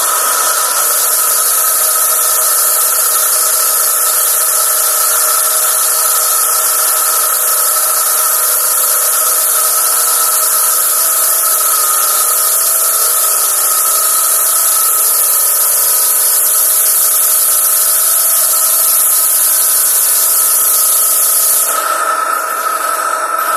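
Pressure washer spraying a high-pressure jet at latex paint: a loud, steady hiss over the steady hum of the machine's pump. Near the end the spray stops for a couple of seconds while the machine keeps running.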